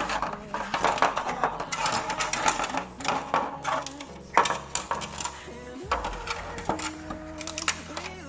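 Clicks, rattles and rustles of a computer case fan's cardboard box and plastic packaging being opened and handled, with background music.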